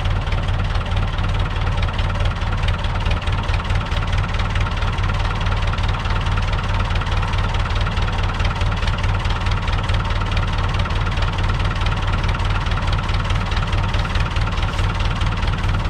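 Long 560 DT tractor's diesel engine running steadily at idle.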